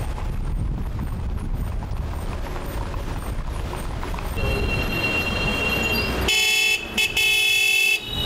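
Rumbling road noise from a moving car, then car horns honking from about four seconds in. The honks get loud about six seconds in, as long held blasts with a few brief breaks.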